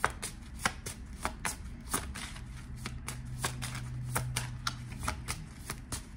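Tarot cards being shuffled by hand: a quick, uneven run of card slaps and flicks, about three or four a second.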